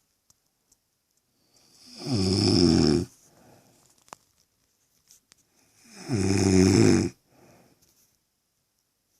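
A woman snoring: two loud snores about four seconds apart, each a little over a second long, building up and cutting off sharply, with a fainter breath after each.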